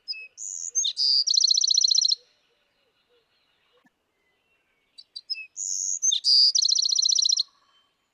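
Bewick's wren song, given twice about five seconds apart. Each song is a few short high notes and a buzzy note followed by a fast, even trill lasting under a second.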